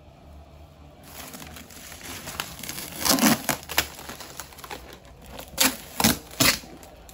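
Bubble-wrap packaging crinkling and rustling as it is pulled off a hard plastic carrying case, with sharp louder crackles about three seconds in and three more near the end.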